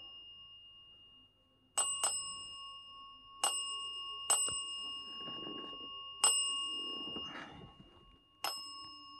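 Chrome desk bell (service bell) struck six times, each strike ringing on as a clear, bright ding: two quick dings close together, then four single ones spread over the following seconds.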